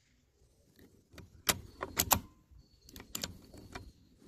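Bolt of a CZ 452 .22 rimfire rifle being worked right after a shot: a run of sharp metallic clicks and clacks over about two and a half seconds as the bolt is lifted, drawn back and pushed home to chamber the next round.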